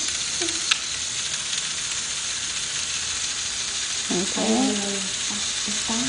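Steady hiss of background noise, with a single sharp click a little under a second in and brief voices about four seconds in.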